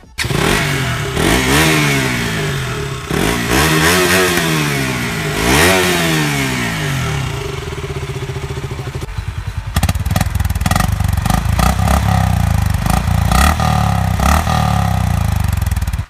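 KTM RC 200's single-cylinder engine revved several times, the pitch rising and falling with each blip before holding briefly. About nine and a half seconds in it gives way to a second motorcycle idling with a steady, rapid thump.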